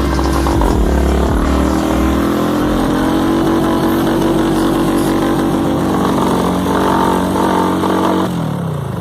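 Motorcycle engine running and revving. Its pitch dips and rises about a second in, holds steady, then falls away near the end as the engine slows.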